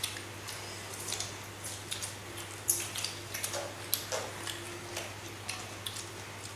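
Scattered light clicks, smacks and ticks of people eating grilled meat with their hands: chewing, tearing meat and fingers knocking on a metal tray, over a low steady hum.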